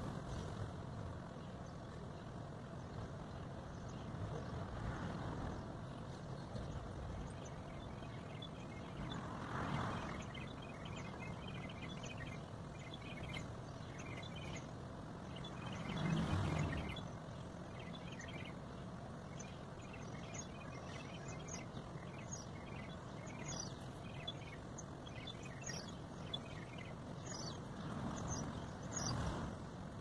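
Outdoor ambience: a steady background hum with vehicles passing three times, swelling about a third of the way in, around the middle and near the end, while small birds chirp throughout.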